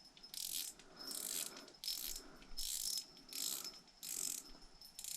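Ice-fishing reel's clicker ratcheting in short spurts, about seven times, as a pike takes line on the bait before the hook is set.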